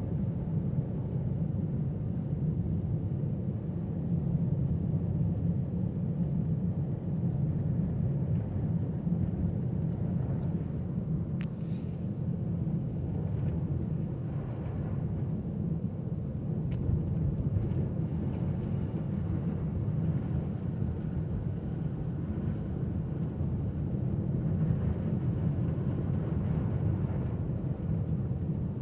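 A car driving along, heard as a steady low rumble of engine and road noise, with a few faint short ticks in the middle.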